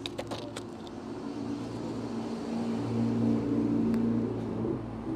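A motor vehicle's engine running close by, steady in pitch, growing louder to a peak a little past the middle and easing off near the end. A few light clicks near the start.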